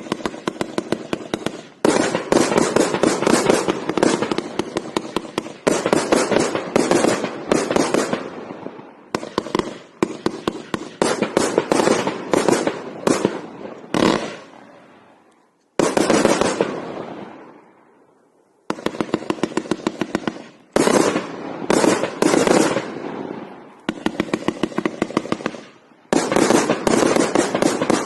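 A 267-shot, 1.2-inch consumer fireworks cake firing rapid volleys of shots, many a second, in runs of one to a few seconds with short pauses between them. Several volleys trail off in a fading hiss.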